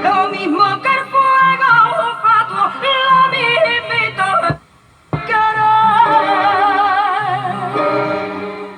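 A woman singing a long, ornamented flamenco-style line with wide vibrato over instrumental accompaniment. The music breaks off for about half a second about halfway through, then the voice resumes on a held, wavering note.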